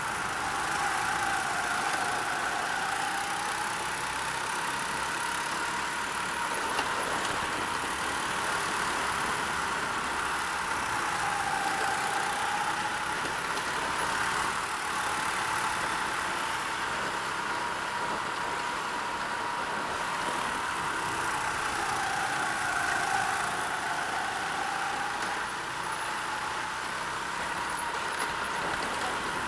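Go-kart engine running hard, heard from on board the kart. Its pitch drops three times, about two seconds in, around twelve seconds and around twenty-three seconds, as the kart slows for corners, then climbs again as it accelerates.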